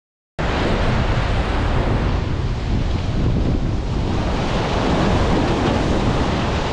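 Sea waves washing among the concrete tetrapods below a breakwater, with wind buffeting the microphone in a heavy low rumble. The sound cuts in suddenly about half a second in and then runs steadily.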